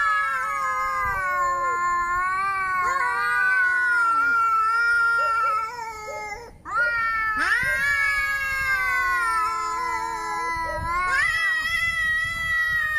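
Domestic cat yowling in long, drawn-out wavering calls, two of them with a short break between, the threatening caterwaul of an angry cat.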